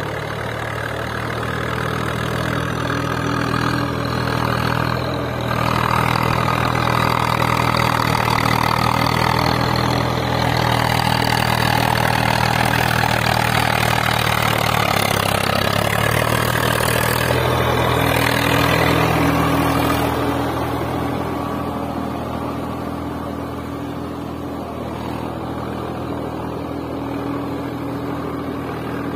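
An engine idling steadily, with a deep even hum. It gets louder and rougher from about five seconds in and drops back to its idling level about twenty seconds in.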